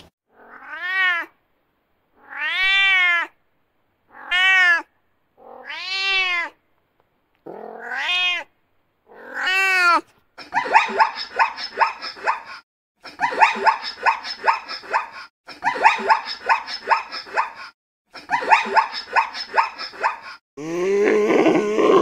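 Domestic cat meowing six times, each meow rising and falling. Then zebra calls: fast, repeated barking yelps in four bouts of a couple of seconds each. A lower animal call starts near the end.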